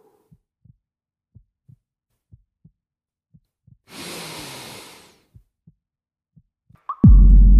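Heartbeat sound effect: faint paired low thumps, lub-dub, about once a second. About four seconds in, a hissing whoosh swells and fades, and near the end a sudden loud hit breaks into a loud low rumbling drone.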